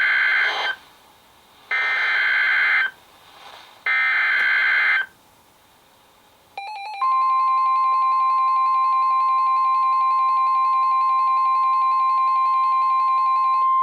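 Emergency Alert System SAME header on NOAA Weather Radio: buzzy digital data bursts about a second long, one ending just after the start and two more a second apart. After a short pause the steady warning alarm tone starts about seven seconds in, joined for most of its length by a second, pulsing alarm tone from a receiver, which stops near the end.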